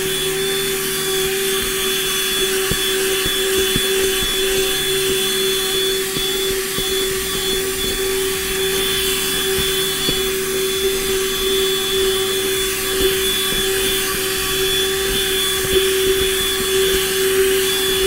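GoMechanic 12 V handheld car vacuum cleaner running steadily with a constant whining hum, its brush nozzle scrubbing carpet and sucking up sand, with small scattered ticks of grit.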